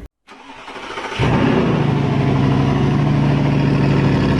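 Ford Focus engine running: the sound drops out for a moment at the start, builds up, and about a second in settles into a steady, even run.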